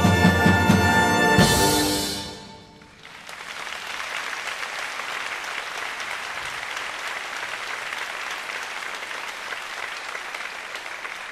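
A wind band holds a loud final chord led by brass, ending with a sharp accent and cutoff about two seconds in. Audience applause follows and carries on steadily.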